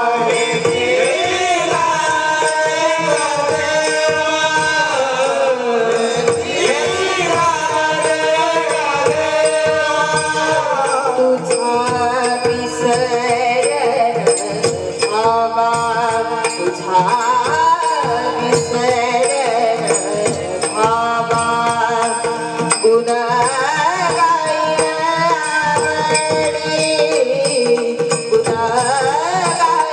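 Marathi devotional bhajan in raga Bhairavi: a girl's voice sings long, gliding melodic phrases over a steady harmonium-like drone, with tabla and small cymbal-like ticks keeping an even beat.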